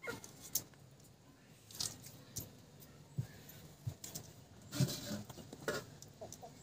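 Raw vegetable being cut into chunks against an upright boti blade: a string of irregular crisp cuts and small knocks, with the strongest ones a little before the end.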